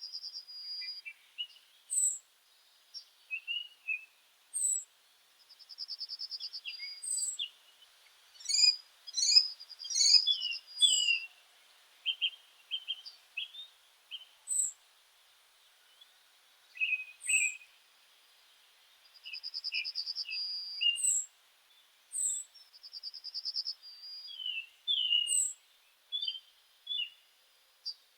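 Several songbirds singing and calling: a buzzy trill of about a second recurs every few seconds, among thin high notes about every two seconds and short chirps. The busiest stretch comes about nine to eleven seconds in.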